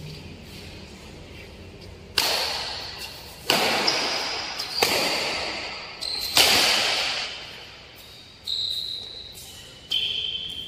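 Badminton rackets striking a shuttlecock in a rally: about six sharp smacks, a second or two apart, each ringing on in the echo of a large indoor hall. Short high squeaks come between some of the hits.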